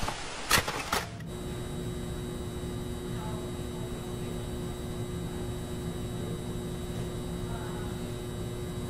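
A burst of TV-static noise with two sharp crackles for about the first second, then steady hallway room tone with a faint, constant electrical hum.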